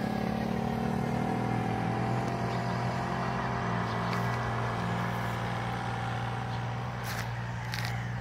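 A motor engine running steadily with a low, even hum that eases slightly in level. Two faint ticks come near the end.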